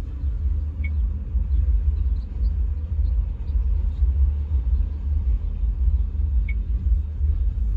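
Low, steady rumble of a car heard from inside the cabin, with a couple of faint small ticks.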